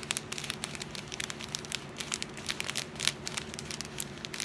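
Small plastic bags of diamond painting drills crinkling and crackling as they are handled, a run of quick, irregular crackles.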